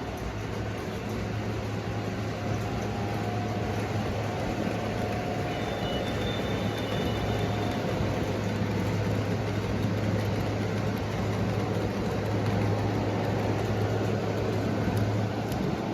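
Model train running on the layout track: a steady motor hum under wheels rumbling and rattling over the rails, growing gradually louder as the train comes nearer.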